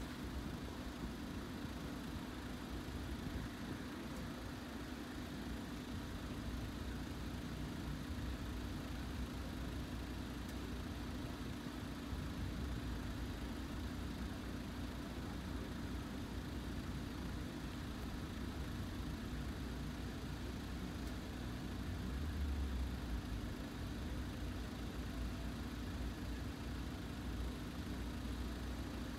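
Engines of a car and a truck idling with a steady low hum; a low rumble swells briefly about 22 seconds in.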